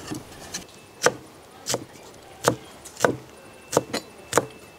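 Kitchen knife chopping green chillies on a thick wooden log-round chopping block: about eight separate blade strikes into the wood, slow and uneven, roughly one every two-thirds of a second.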